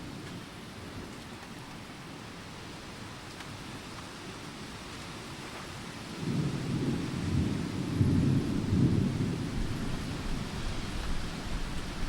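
Steady rain, with a roll of thunder rumbling in about halfway through and loudest a couple of seconds later.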